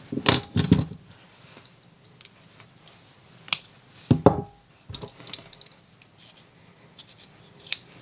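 Pocket knives being handled: a few sharp clicks and light knocks at irregular intervals, one of them ringing briefly about four seconds in.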